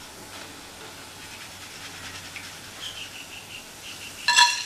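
Freshly fried karaboondi tipped from a stainless steel slotted ladle onto a plate, over a faint steady hiss, with a short ringing metallic clink near the end as the ladle meets the plate.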